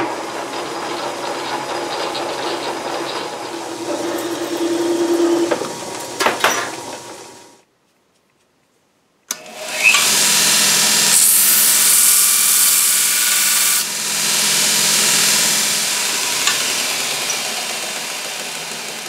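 A metal lathe runs, with a rising tone from the cut in the middle, then slows and stops about seven seconds in. After a short gap a belt grinder starts, and a small steel part is pressed against the belt for about three seconds with a loud, bright grinding hiss. The grinder then runs on, growing gradually quieter near the end.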